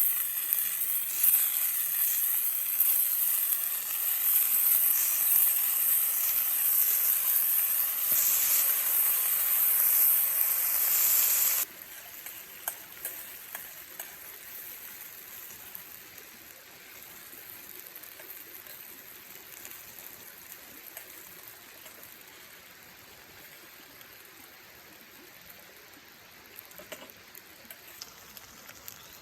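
Food sizzling in a pan, a loud hiss with small pops that cuts off suddenly about twelve seconds in. Faint scattered crackles and ticks follow.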